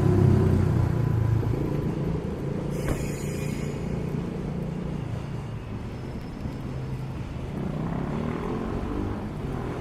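A motor vehicle's engine fading away after passing close, over a low traffic rumble, with a short sharp sound about three seconds in. Another vehicle's engine grows louder near the end.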